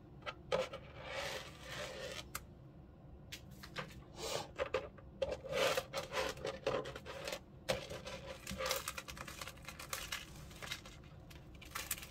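Metal jewelry chains and pieces clinking and sliding against a plastic tray as hands sort through them, with irregular light clicks and soft rubbing.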